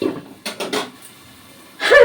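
A woman coughing in short fits, three times, with the last the loudest, irritated by the fumes of chili and spices frying in the pan. A faint steady hiss of the frying runs underneath.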